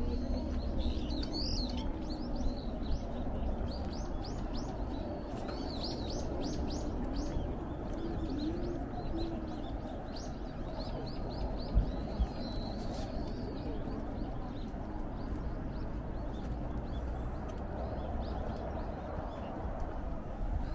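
Small birds chirping in quick runs of short, repeated notes that fade out a little past halfway, over a low steady rumble. Two brief thumps a little past halfway are the loudest sounds.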